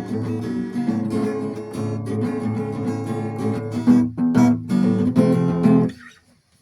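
Acoustic guitar strummed in a steady rhythm, chords with a melody line, with a few sharper, percussive strokes toward the end; the playing stops about six seconds in.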